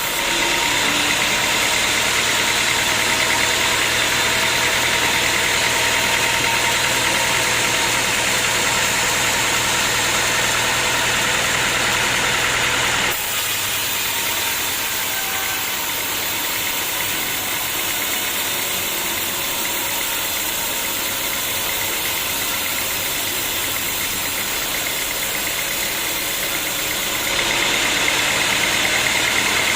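Sawmill machinery running with a steady mechanical drone and a high hiss. The sound steps louder just after the start, drops abruptly about 13 seconds in, and rises again near the end.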